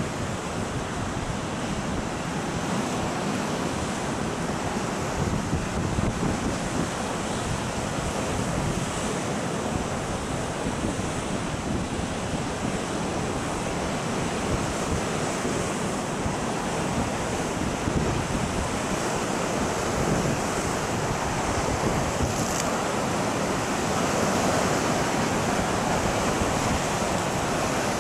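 Storm waves surging and breaking against a stone harbour jetty, a steady wash of surf, with strong wind buffeting the microphone.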